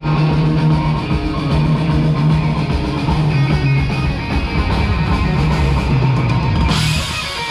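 Live rock band playing on an outdoor stage, electric guitar to the fore over a steady bass line. The sound turns brighter and hissier near the end.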